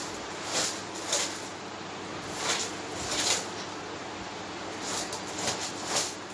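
A hand broom swished across a bedsheet in short, uneven strokes, about seven of them.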